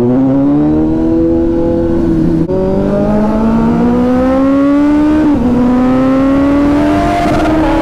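Kawasaki Z900 inline-four running through a loud aftermarket exhaust, accelerating with its pitch climbing steadily. It shifts up three times, with a sudden drop in pitch about every two and a half seconds.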